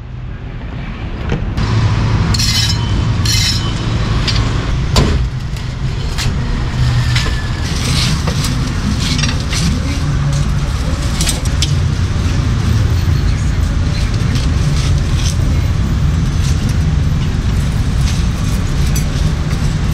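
Steady street traffic, vehicle engines running past, with scattered sharp clinks and knocks, the first few of them within the opening seconds.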